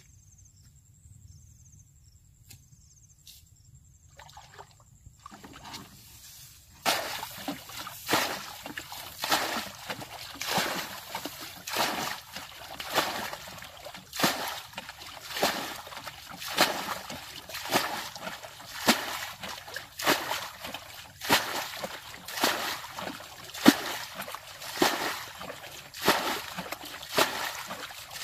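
Water sloshing and splashing in a steady rhythm, roughly one splash a second, starting about seven seconds in after a quiet stretch with a few faint clicks.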